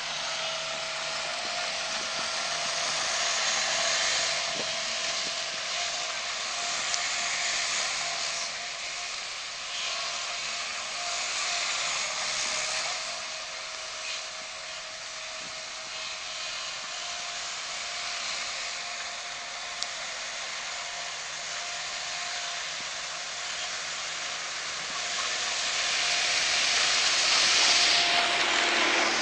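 Amphibious all-terrain vehicles running across a snow-covered frozen lake: a steady hiss with a faint whine, swelling several times as the vehicles pass, loudest near the end.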